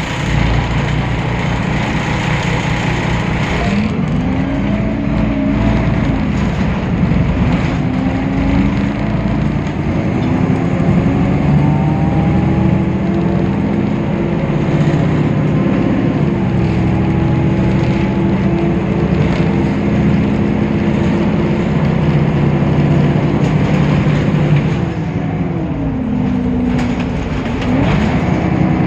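Temsa Avenue LF city bus's DAF PR 228 six-cylinder diesel engine driving through its ZF automatic gearbox. The engine note climbs and falls a few times as the gearbox shifts, holds steady for a long stretch, then drops and climbs again near the end.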